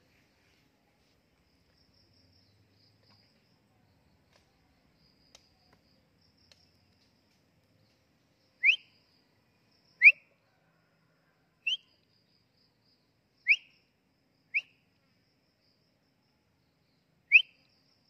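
Six short, sharp whistle notes, each sliding quickly upward in pitch. The first comes about nine seconds in, and the rest follow at irregular gaps of one to three seconds.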